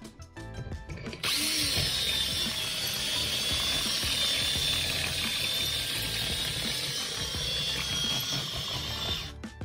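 Power drill boring through metal, running steadily with a thin high whine for about eight seconds after starting a second in, then stopping abruptly near the end.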